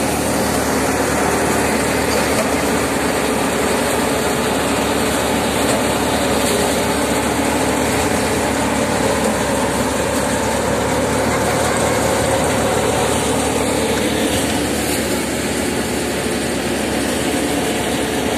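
Motorised paddy thresher running steadily while threshing rice and blowing out straw, a continuous mechanical din.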